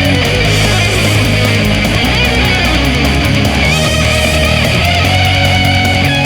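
Background music: loud heavy rock with distorted guitars and a steady bass.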